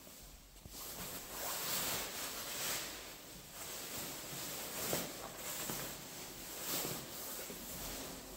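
Fabric of a padded jacket rustling and swishing close to the microphone as the wearer moves, in uneven surges.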